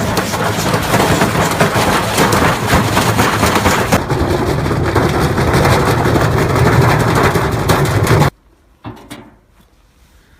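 Washing machine running with loud, rapid rattling and knocking that stops suddenly about eight seconds in.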